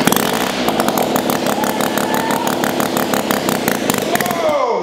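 Freshly rebuilt Sachs KM24 single-rotor Wankel rotary engine running on its first start after the rebuild, with no exhaust fitted, a steady note with a rapid even crackle of firing. Near the end it slows with a falling pitch and stops.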